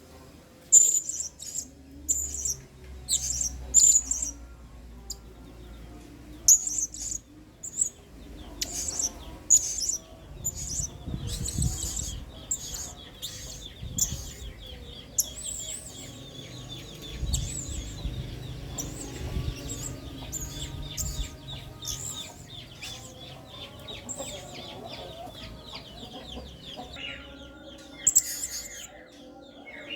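Blue-crowned hanging parrot (serindit) calling: a string of short, sharp, high calls, with a rapid chattering twitter running through the middle stretch and more sharp calls near the end.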